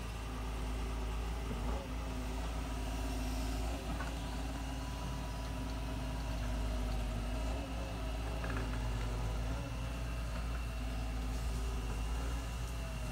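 Hydraulic excavator's diesel engine running steadily.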